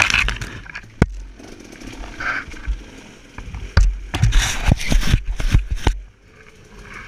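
Dirt bike being ridden over rough woods trail: the engine buzzes under a sharp knock about a second in and a run of knocks and clatters from about four to six seconds in.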